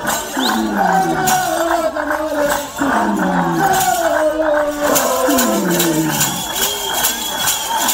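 A group of voices chanting in long falling calls, three of them about two seconds apart, over regular sharp percussive beats, typical of Ngoni dance singing.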